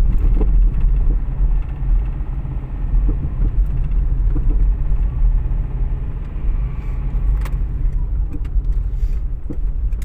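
Car engine running, heard from inside the cabin as a steady low rumble, with a few light clicks.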